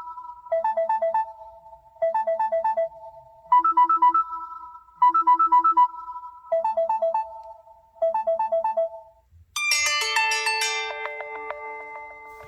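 LG X2 phone alarm tones: a beeping electronic alarm melody of quick runs of four or five notes about every one and a half seconds, alternating between a higher and a lower pitch. About nine and a half seconds in, it changes to a different tone, a bright bell-like chime that rings out and slowly fades.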